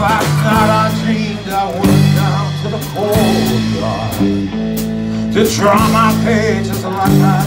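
Live band playing a country-rock train song: electric guitars over steady bass notes and drum and cymbal hits, with a man singing lead into a microphone.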